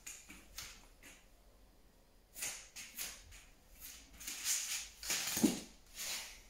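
Short breathy puffs and soft rustles from a girl working in a backbend bridge on a foam exercise mat, about a dozen in all, with one louder, lower sound about five seconds in as she lowers herself to sit.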